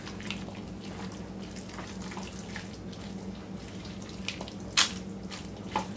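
Spatula stirring drained mixed vegetables into a thick filling of cream cheese and cream of chicken soup in a bowl: soft wet squelching with light scrapes, and one sharper click near the end.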